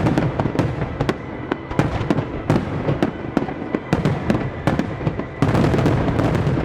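Starmine fireworks barrage: aerial shells bursting in rapid, irregular succession of sharp bangs. About five and a half seconds in, the bursts pile into a dense, louder, continuous crackling volley that stops near the end.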